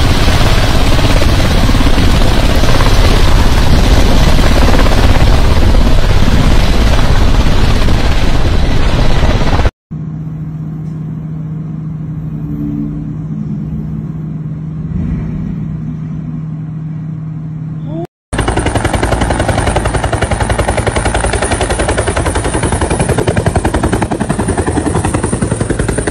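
Helicopter rotor and engine noise in three cut-together recordings. First a tandem-rotor Chinook running loud at close range. About ten seconds in it cuts to a helicopter heard muffled through a window as a steady low hum. At about eighteen seconds it cuts again to a utility helicopter close by, with a fast, loud, even blade chop.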